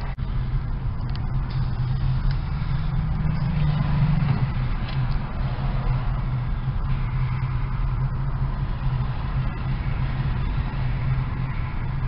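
Steady drone of a moving car's tyres and engine heard from inside the cabin, with a low hum under an even road-noise hiss.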